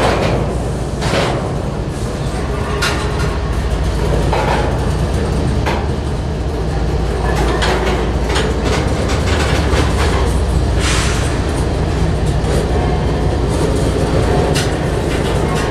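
Freight train's covered hopper cars rolling past close by: a steady low rumble of wheels on rail, with irregular clanks and clicks from the wheels and couplings.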